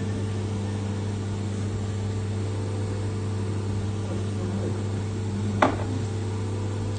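CNC machine running steadily partway through a long machining program, a constant hum with one sharp click about five and a half seconds in.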